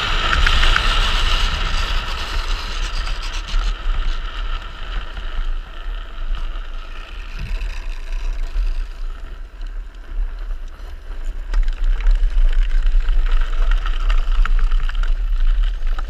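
Wind buffeting the helmet-mounted camera, with the rush of a speed trike's wheels rolling over the road during a fast descent. The rush is loudest at the start, eases off around the middle and picks up again near the end.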